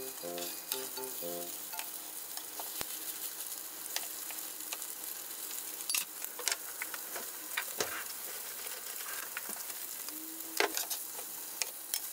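Udon gyoza patties frying in oil in a frying pan, a steady sizzle, with a few sharp clicks and scrapes of the turner against the pan as they are turned.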